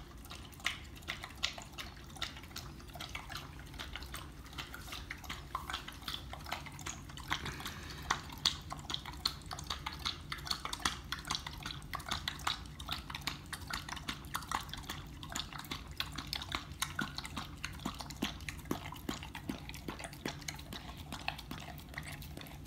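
A dog lapping raw goat milk from a bowl: a steady run of quick, wet lapping clicks and drips, several a second.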